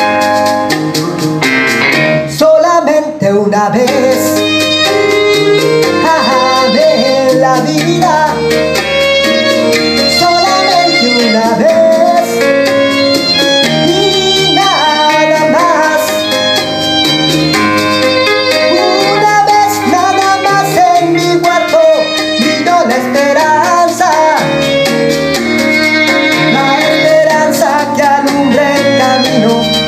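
A man singing a Spanish-language bolero into a microphone over instrumental accompaniment, the voice coming in about three seconds in after a short break in the music.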